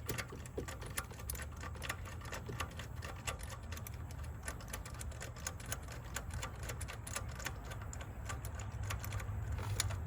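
Ratchet wrench clicking in quick, uneven runs while a new spark plug is run down into the cylinder head, over a low steady hum.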